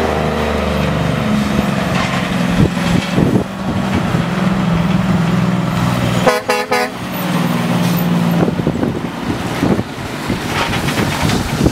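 Kenworth logging truck's diesel engine running steadily as the loaded truck passes close by, with a short horn toot about six seconds in.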